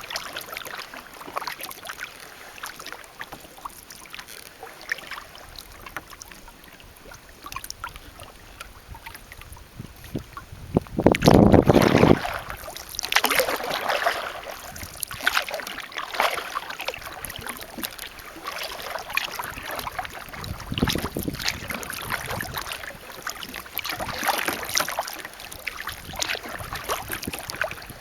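Kayak paddle strokes dipping and splashing in calm water, coming every second or two. About eleven seconds in, a loud, low rush of wind hits the microphone for a second or so.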